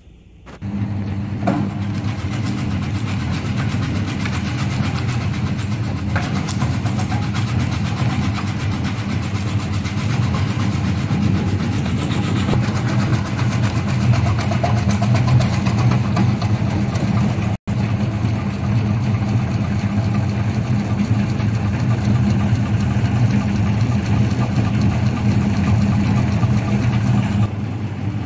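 Electric vegetable cutting machine switched on about half a second in and running steadily with a low motor hum, cutting out for an instant near the middle.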